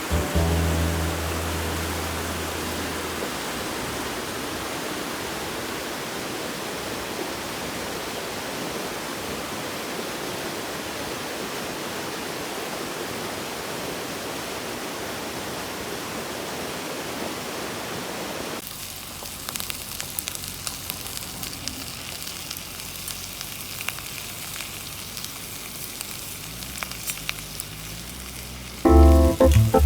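Steady rushing of running water. About two-thirds of the way through it cuts to a quieter hiss with scattered small pops, as food sizzles in a pan.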